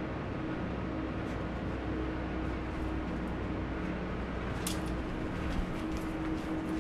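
A steady low mechanical hum with hiss and a faint constant tone, with a few light clicks in the second half.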